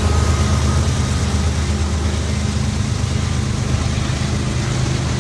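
CSX freight train passing close by: a steady diesel locomotive engine drone under the even noise of wheels rolling on the rails.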